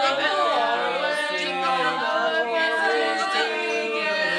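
A small group of carolers, men's and women's voices together, singing a cappella without a break.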